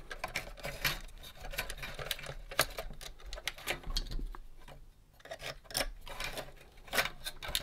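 Irregular small clicks and taps of hands working the metal spring-wound mechanism inside a 1971 Nintendo Ultra Scope toy periscope, with a short pause a little past halfway.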